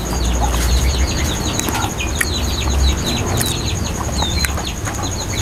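Birds chirping busily: many quick, short, falling peeps overlapping, with a few light clicks among them.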